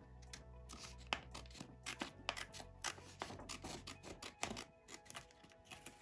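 Small spring-loaded scissors of a Victorinox Classic Swiss Army knife snipping repeatedly through a sheet of A4 paper in short, quick cuts, about two a second, with quiet background music.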